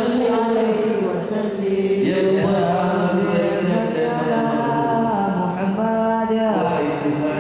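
Men's voices chanting selawat, devotional Arabic praise of the Prophet Muhammad, unaccompanied, in long held melodic lines that glide between notes.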